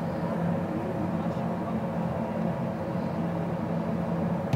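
Steady mechanical drone of the air-supported dome's blowers or air-handling fans, a constant hum with a few fixed tones in it, echoing in the large inflated hall.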